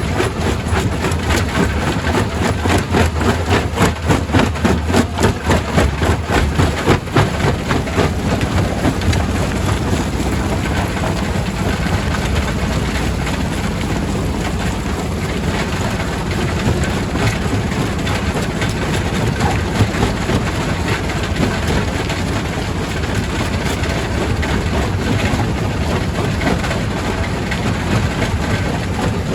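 Quarry primary rock crusher running with a heavy engine drone; rock clatters and knocks rapidly through it for the first several seconds, then the sound settles into a steadier rumble.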